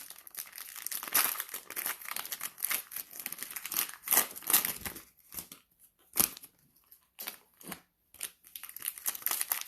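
Plastic shrink wrap crinkling and tearing as a sealed trading-card cello box is unwrapped. The crackling comes in dense handfuls, thins to a few sharp crackles about halfway through, then picks up again near the end.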